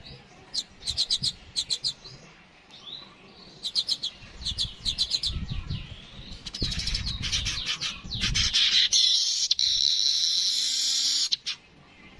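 A yellow-headed weaver (manyar kepala kuning) singing: short rattling chatters of rapid clicks that build into a loud, harsh wheezing buzz about nine seconds in, which cuts off abruptly near the end. A low rumble runs under the middle of the song.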